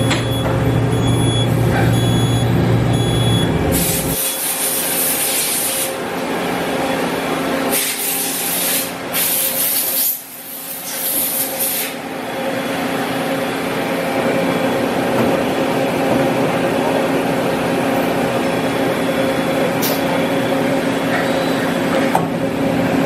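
Matsuura Cublex-42 5-axis CNC machining center running with a steady hum and whine. Loud bursts of coolant spray hiss come at about 4 to 6 seconds and again from about 8 to 12 seconds. A few short high beeps sound in the first few seconds.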